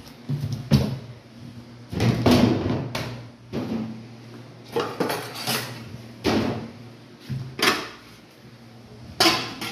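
A series of irregular knocks and clatters from objects being handled and set down, about ten in all, over a low steady hum.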